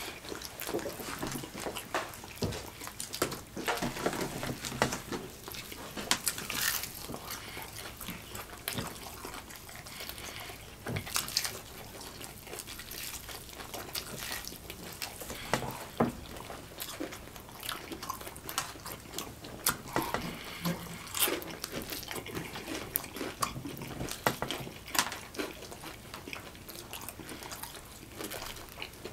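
Two people eating fried chicken: chewing and biting into the pieces, heard as steady mouth noise with many short, irregular clicks and crackles.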